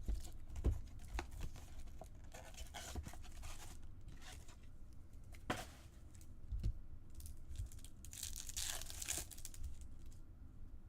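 Trading card packaging being torn open and handled: paper and foil tearing and crinkling with scattered light clicks, and a longer tear about eight seconds in.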